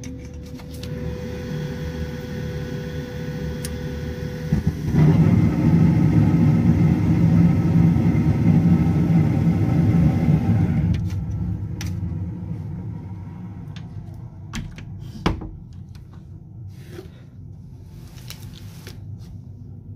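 Carrier Performance 96 two-stage gas furnace starting up: the draft inducer runs with a steady hum and faint tone, then about five seconds in the burners light in high stage with a sudden loud rumble of flame. About six seconds later the rumble drops and fades as the furnace switches down to low stage and keeps burning more quietly, with one sharp click a few seconds after.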